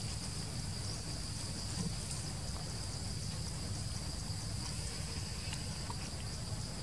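Steady high-pitched drone of insects chirring, with a low rumbling noise underneath.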